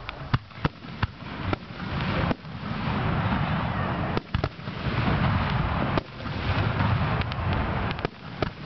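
Aerial fireworks shells bursting: a quick run of sharp bangs and pops in the first second and a half, then scattered cracks over a low, rolling rumble of booms.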